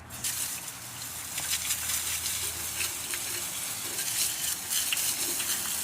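A steady hissing spray with a fine crackle, starting suddenly, as in parts being sprayed down during engine-block cleaning.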